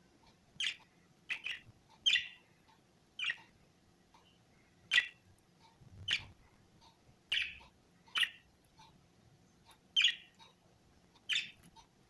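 Budgerigars giving short, sharp chirping calls, about eleven of them at uneven intervals, roughly one a second.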